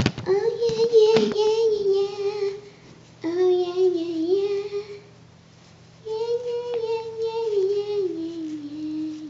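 A child's voice singing long held notes in three phrases, the last one sliding slowly down in pitch. There are a couple of sharp clicks near the start.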